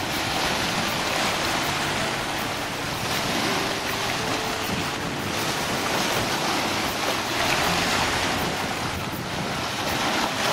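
Small waves washing on a beach, with the noise swelling and easing every couple of seconds.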